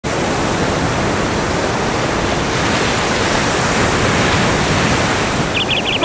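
Steady rushing noise of sea surf breaking on the shore. Near the end a quick run of high chirps begins.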